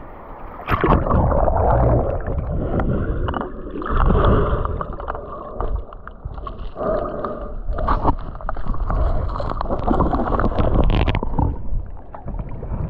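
Stream water gurgling and churning, heard through a camera held under the surface, muffled and low. It thins out near the end as the camera comes up out of the water.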